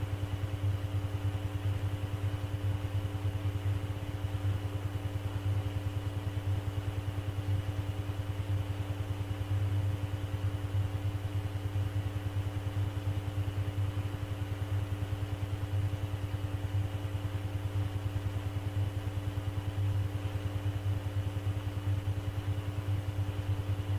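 Steady electrical hum and hiss on an air traffic control radio recording with no transmission on the frequency: a strong low hum with several fainter steady tones above it, starting abruptly at the opening.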